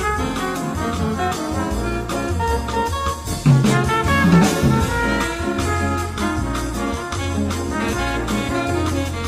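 Upbeat music with brass horns and a steady rhythmic bass line.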